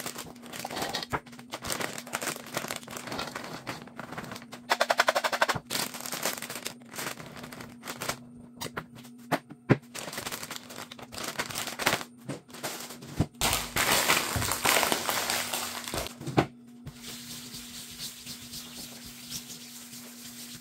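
Plastic snack packets crinkling and rustling as they are handled and cleared off a table, with small knocks of things being set down. There is a burst of rapid crackling about five seconds in and a louder stretch of rustling past the middle; it goes quieter near the end.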